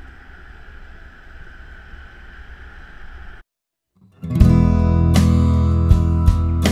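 Soft ambient background music that cuts off about three and a half seconds in; after a brief silence, loud strummed acoustic guitar music starts.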